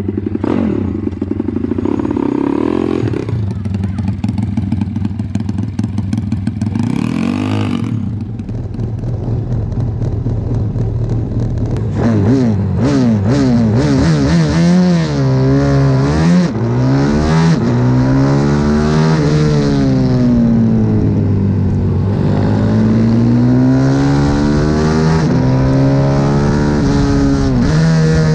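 CW 140 pit bike's single-cylinder engine, first running at low revs in the paddock, then, from about 12 seconds in, revving hard on track. Its pitch climbs through each gear and falls away under braking, over and over.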